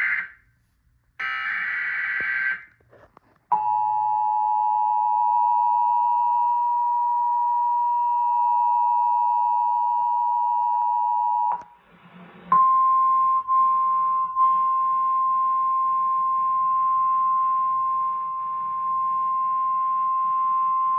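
Emergency Alert System signal on cable TV: two short raspy digital header bursts, then the steady two-tone attention signal held for about eight seconds. After a brief break, a single steady higher tone is held for about nine seconds before the warning message.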